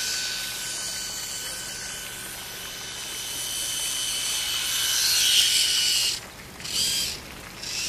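Micro RC model boat's small electric motor and propeller whining at a high pitch, growing louder as it runs close. The whine cuts off about six seconds in, comes back for a short burst of throttle, and cuts off again.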